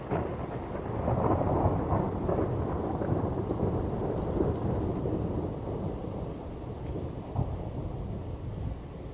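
Thunder rolling and rumbling low through steady rain, loudest in the first couple of seconds and slowly dying away, with one sharper crack about seven seconds in.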